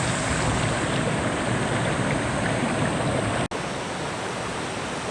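Mountain stream water rushing, a steady noise. It breaks off for an instant about three and a half seconds in, then carries on slightly quieter.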